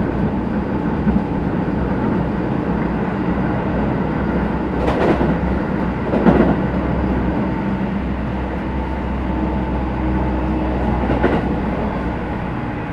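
Keisei 3050 series motor car running, heard from inside the car: a steady rumble of wheels on rail with the hum of its Toyo IGBT inverter-driven traction motors, and three sharp clacks of wheels over rail joints about five, six and eleven seconds in.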